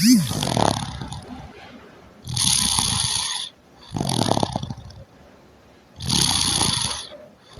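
A sleeping person snoring, breath after breath every two seconds or so: hissing breaths alternating with lower, rasping ones.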